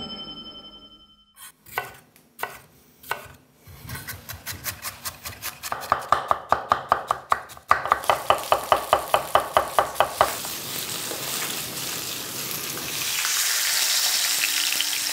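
A short chime rings and fades, then a few separate knocks, then a knife chopping rapidly on a cutting board at about five strokes a second. The chopping gives way to food sizzling in a frying pan, which grows louder near the end.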